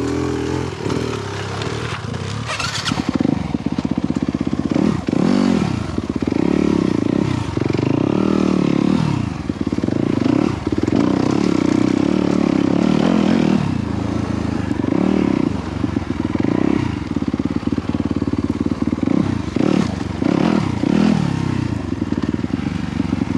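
2017 Yamaha YZ250FX's four-stroke single-cylinder dirt bike engine revving up and down over and over while being ridden, its pitch rising and falling with each opening and closing of the throttle.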